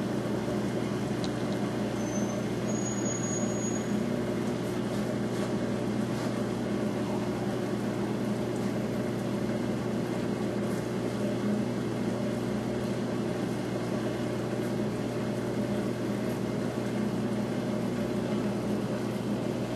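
Steady mechanical hum of running aquarium equipment: a low drone with several held tones above it and an even hiss, unchanging throughout.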